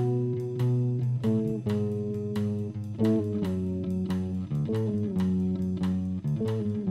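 Background music: plucked notes with a steady beat.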